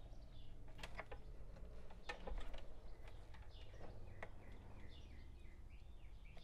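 Faint handling noise from a three-prong power cord being knotted inside an amp chassis: small clicks and rustles of the cord and wires, over a low steady hum. From about halfway in, faint high chirping calls run on in the background.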